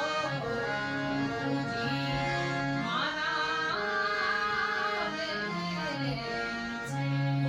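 Gujarati devotional bhajan: a woman singing over sustained instrumental accompaniment, with a long high wavering note about three seconds in.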